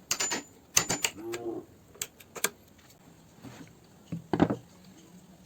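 Irregular sharp knocks and clacks of woodworking hand work, about half a dozen. One early strike is followed by a brief ringing tone, and there is a louder cluster of knocks near the end.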